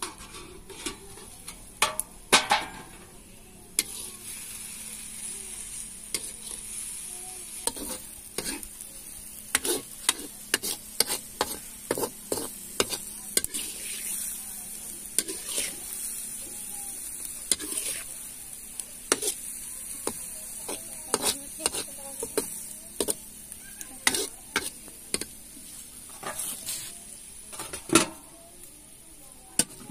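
Long steel spatula scraping and clinking against an iron karahi as shredded pumpkin fries in it, with a steady sizzle under many sharp metal clicks. Loud metal clanks come about two seconds in and near the end.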